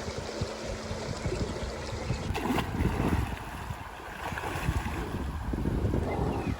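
Wind buffeting the microphone outdoors: an uneven low rumble in gusts over a steady hiss.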